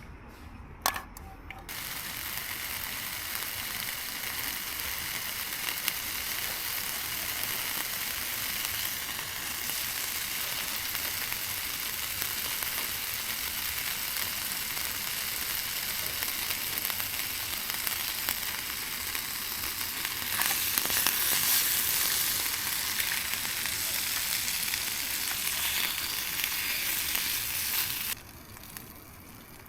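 Food sizzling as it fries in a pan on a camping stove. The sizzle starts suddenly about two seconds in, grows louder about two-thirds of the way through, and cuts off abruptly near the end.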